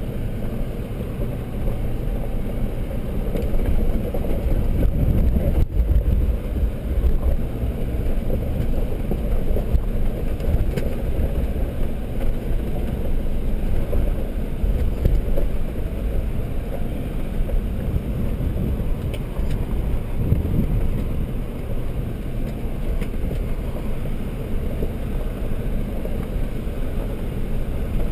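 Land Rover driving slowly down a steep, stony off-road track, heard from inside the cabin: an uneven low rumble of engine, tyres and suspension working over rough ground, swelling louder a few seconds in and again past the middle.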